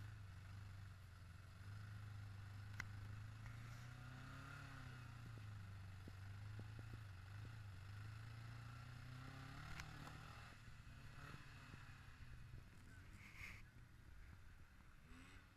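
Rock crawler buggy's engine running on a rock climb, its revs rising and falling a couple of times, heard faint and muffled through a sealed GoPro waterproof case. Two sharp clicks, near the start and about two-thirds of the way in.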